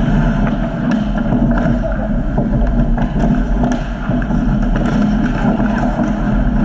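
Steady low rumble of an ice hockey rink's background noise, with a few faint sharp clicks of sticks, skates and puck as players play in front of the net.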